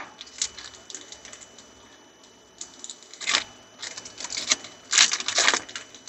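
Trading cards and a foil pack wrapper being handled by hand: irregular rustles, crinkles and clicks, loudest a little after three seconds in and again around five seconds.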